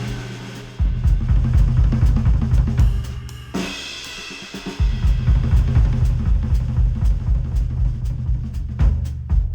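Drum-led instrumental music with a heavy bass beat, snare and hi-hat, reproduced by Audeze MM-500 planar magnetic headphones and captured by microphones at the earcups. The beat drops out for about a second partway through, then comes back in.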